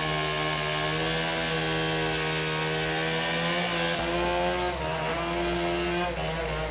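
Two-stroke chainsaw running at high speed with a steady buzzing tone, its pitch wavering slightly as it cuts into the trunk of a large felled tree.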